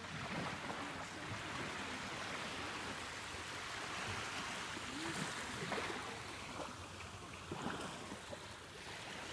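Gentle surf washing in over a sandy beach, a steady hiss of small waves.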